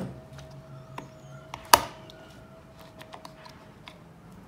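Light clicks and taps of fingers handling the pawls and locking spring clip inside a Mobylette moped's recoil starter housing, with one sharper knock a little under two seconds in.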